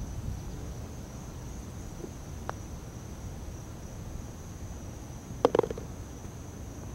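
A putter strikes a golf ball with a faint click, then about three seconds later the ball clatters as it drops into the cup, in a quick cluster of knocks that is the loudest sound here.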